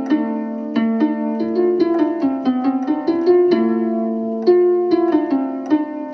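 Instrumental background music of plucked strings: quick runs of ringing notes over held low notes.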